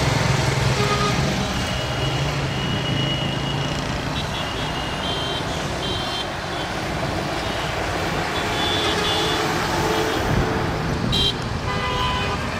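Steady din of city road traffic, with a low engine drone in the first few seconds and several short vehicle horn honks scattered through, two of them sharper near the end.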